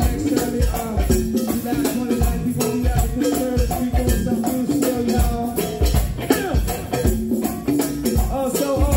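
Live go-go band playing: a steady kick-drum beat about twice a second under electric guitar, horns and shaker-like percussion.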